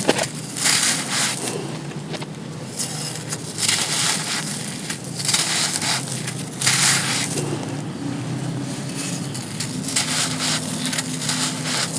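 Dry, gritty sand cones being crushed and crumbled, in a series of crunchy, gritty bursts with short pauses between them.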